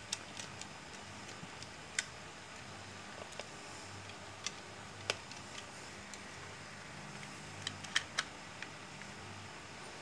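Scattered small sharp clicks and taps of a plastic power bank case and battery holder being handled and its cover fitted over the wires, with a few clicks close together about eight seconds in, over a faint low hum.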